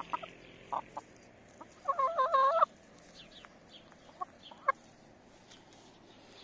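Hens clucking: a few short clucks, then one louder, wavering call of just under a second about two seconds in, and two more short clucks a couple of seconds later.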